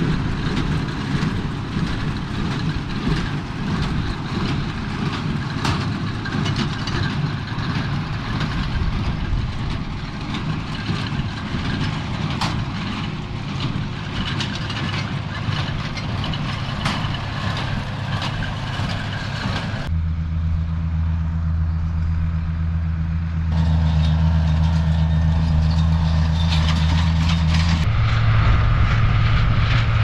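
New Holland small square baler running behind its tractor: a dense mechanical clatter with many sharp clicks and knocks. About two-thirds of the way through it changes abruptly to a steady, even tractor engine hum, which shifts a little higher near the end.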